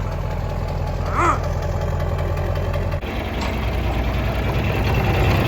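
Diesel engine idling steadily after a cold start, its low hum changing character about three seconds in, with a brief high squeak about a second in.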